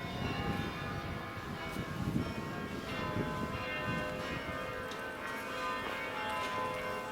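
Carillon bells of St. Peter's Church, Leuven, being played: many bells struck one after another, their tones ringing on and overlapping.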